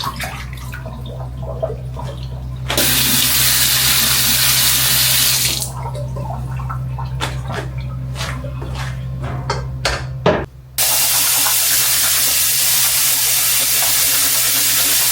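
A kitchen sink tap runs in two spells, with short clinks and clatter of dishes between them, as if dishes are being rinsed. A steady low appliance hum stops a little over ten seconds in.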